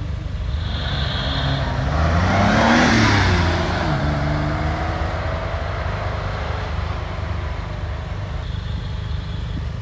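Classic Porsche 911's air-cooled flat-six revving hard as the car launches from the start line, its pitch rising and loudest about three seconds in, then fading as the car pulls away.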